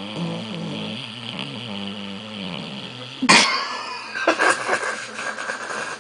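A dog snoring deeply in its sleep, a long wavering rasp lasting about three seconds. About three seconds in comes a sudden loud burst of breath, the loudest sound, followed by a few shorter broken bursts.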